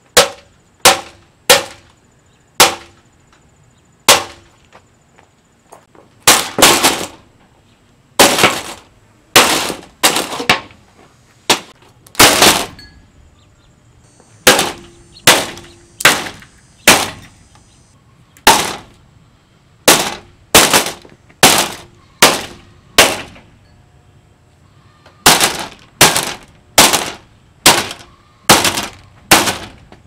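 Plastic blades of a Galaxy box fan being struck through the grille with a long pole: dozens of loud, sharp cracks, irregularly spaced about half a second to a second apart, with a few short pauses.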